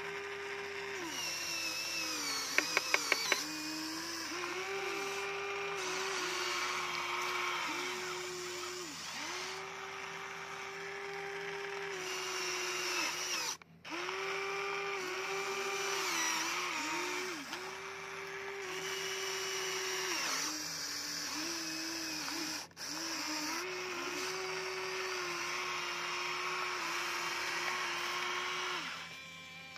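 Electric motors of a Huina radio-controlled toy excavator whining as it works its arm and bucket in mud. The whine dips in pitch and recovers every second or two as the movements start and stop. A quick run of sharp clicks comes about three seconds in, and the sound cuts out briefly twice.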